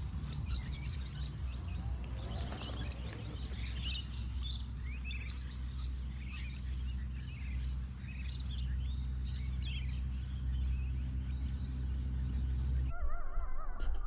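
Wild birds chirping and calling, many short calls overlapping, over a steady low hum. A little before the end the sound changes abruptly.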